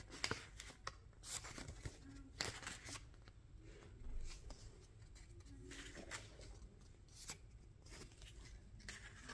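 Faint rustling and handling of paper and packaging, in scattered short crinkles, taps and scrapes.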